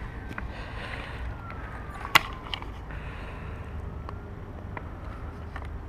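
A few short clicks from handling a handheld digital fish scale with a fish hanging from it, one sharp loud click about two seconds in, over a steady low wind rumble on the microphone.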